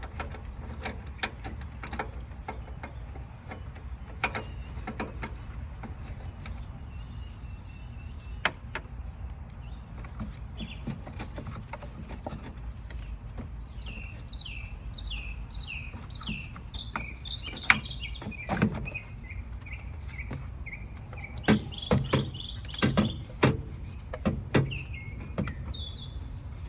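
Scattered sharp clicks and knocks of parts and hand tools being handled in a van's engine bay, over a steady low rumble. From about halfway a small bird chirps in runs of short falling notes.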